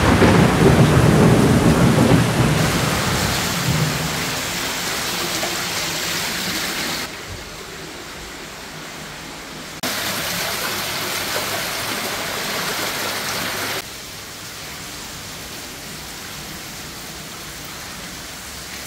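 Heavy rain pouring down, with a low rumble of thunder strongest in the first few seconds. The hiss of the rain then goes on steadily, jumping abruptly quieter and louder a few times.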